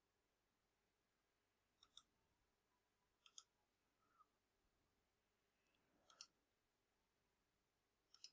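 Faint clicks of a computer mouse button, four times, each a quick pair of clicks.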